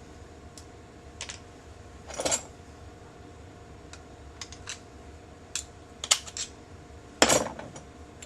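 Small metal parts of a MEC 600 shotshell reloading press's final crimp station clicking and clinking as they are handled and taken apart, with two louder rattling clatters about two and seven seconds in.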